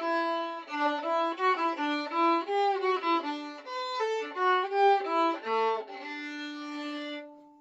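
Solo violin playing a lively run of short, separately bowed notes, then a longer held note that ends about seven seconds in.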